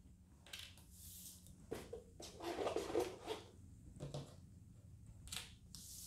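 Stacks of tarot cards being handled and slid across a wooden tabletop: a few faint scrapes and rustles, the loudest about two and a half to three and a half seconds in.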